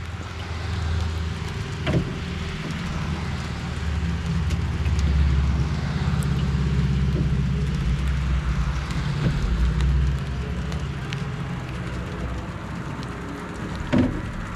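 A motor vehicle's engine running with a low, steady hum. It grows louder for a few seconds and then fades, over a hiss of rain.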